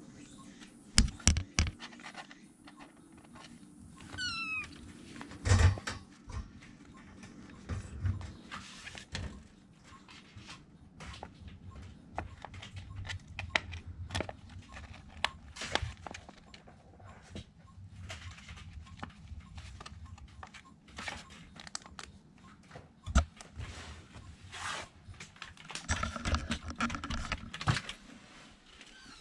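A kitten gives one short, high meow about four seconds in, among scattered light knocks and rustles from kittens moving about on a paper bag in a wire rack.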